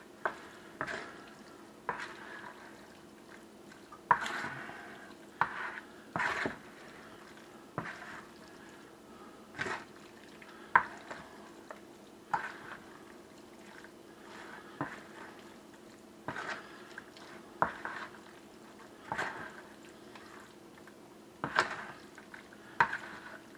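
Chicken thigh pieces being stirred and tossed in a wet buffalo-sauce marinade with a slotted spoon in a plastic bowl: wet stirring and scraping in irregular strokes every second or two, with a few sharp clicks of the spoon against the bowl.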